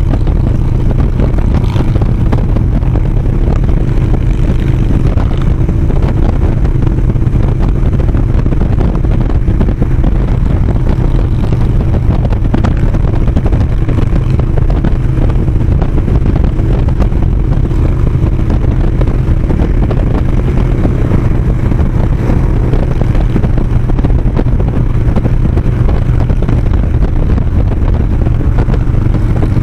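Harley-Davidson touring motorcycle's V-twin cruising at a steady highway speed: a loud, steady low engine drone mixed with wind and road rush.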